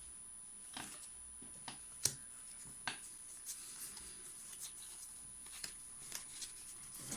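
Faint rustling and scattered soft clicks of a foil booster pack being opened and its trading cards handled, with the sharpest tick about two seconds in.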